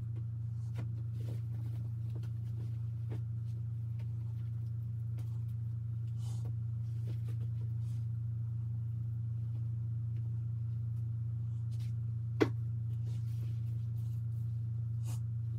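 A steady low hum with faint rustling and small clicks of clothes being picked up and folded, and one sharp click about twelve seconds in.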